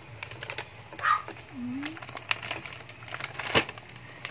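Thin plastic carry-out bag rustling and crinkling as it is handled and emptied, with scattered crackles and one sharp click about three and a half seconds in. A brief low rising sound comes near the middle.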